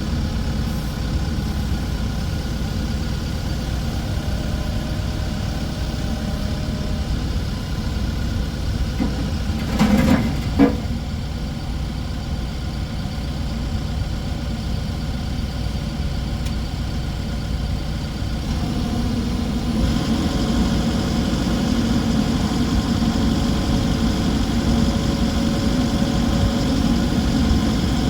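Case 580N EP backhoe loader's diesel engine idling steadily, with two short knocks about ten seconds in. The engine sound grows a little louder about two-thirds of the way through.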